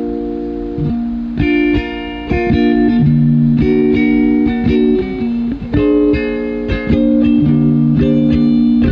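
Instrumental passage of a band song with no singing: a guitar plays picked, ringing chords that change every second or so, with a lower note entering about three seconds in.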